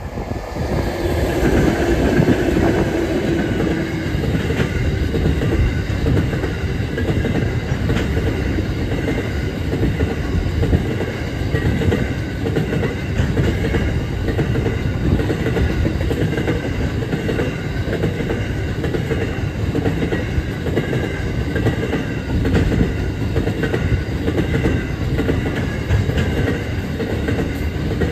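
Freight train passing close by: its diesel locomotives go by in the first few seconds with a steady engine note, then a long string of hopper wagons rolls past with steady wheel-on-rail noise and clatter.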